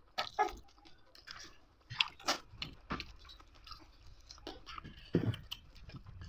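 A person chewing and crunching fried bird, with irregular crisp crunches and mouth sounds.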